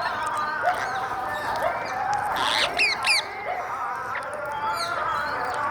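A flock of parrots squawking and chattering, many birds calling over one another, with a run of sharp high falling calls about two and a half to three seconds in.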